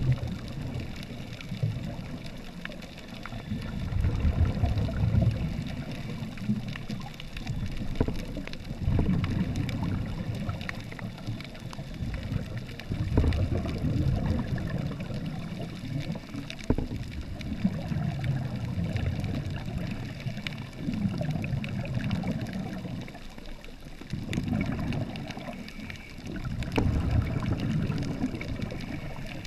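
Scuba regulator exhaust bubbles heard underwater through a GoPro housing: low bubbling rushes that come in bursts every four or five seconds, with faint crackling clicks throughout.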